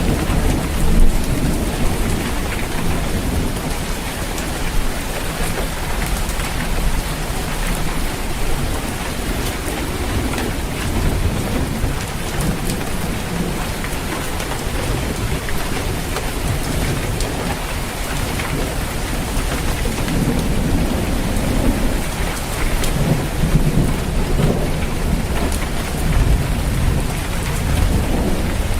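Steady heavy rain drumming on a roof, with low rolling thunder rumbling underneath that swells about a second in and again near the end.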